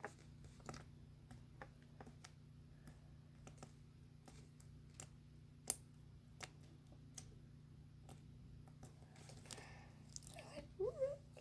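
Faint scattered sticky clicks and squishes of a tiny clear slime being handled and swirled, with one sharper click about six seconds in, over a low steady hum.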